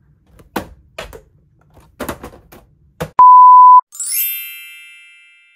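A few light knocks and thuds of boxes being handled on a shelf, then a loud steady beep tone for about half a second, followed by a bright sparkling chime that rings and fades out.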